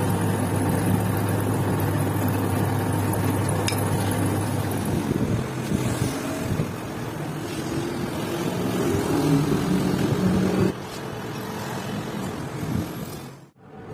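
Metal lathe running in a workshop, a steady low motor hum. The sound changes abruptly about eleven seconds in and cuts out briefly near the end.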